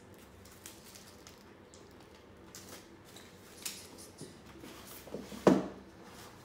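Handling noise from a cardboard gift box being opened: soft clicks and rustles, with one louder thump near the end.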